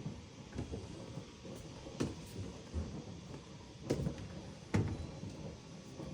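Clicks and knocks from handling a Miele dishwasher's door and its spring mechanism. Three sharp knocks come about two, four and nearly five seconds in, with quieter rattling between them.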